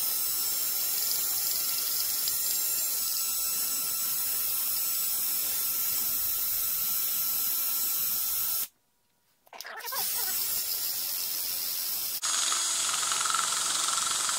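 Cordless drill running at low speed, spinning emery cloth on a slotted rod inside a Husqvarna 55 chainsaw cylinder bore: a steady whirring hiss of abrasive scrubbing off aluminum transfer. It stops for about a second two-thirds of the way through, then starts again and runs louder near the end.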